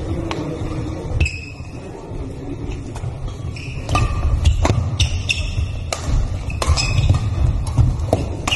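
Badminton rally: sharp pings of rackets striking the shuttlecock, each with a brief ringing. A first hit comes about a second in, then they quicken to a fast exchange of several hits a second, over the low rumble of a large hall.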